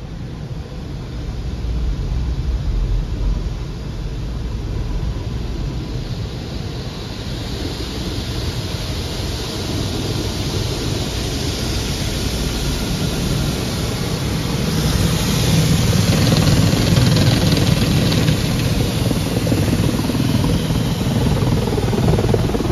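Automatic car wash heard from inside the car: water and foam spraying onto the glass over the steady running of the wash machinery. The rushing grows louder and hissier about a third of the way in, and heavier again past the middle.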